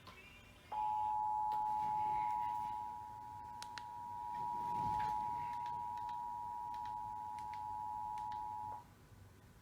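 Emergency Alert System attention signal: two steady tones sounding together, held for about eight seconds and cutting off sharply, announcing an emergency Amber Alert message.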